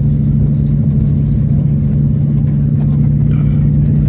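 Aircraft engines droning steadily in flight as heard inside the cabin: a constant low hum over a rumble.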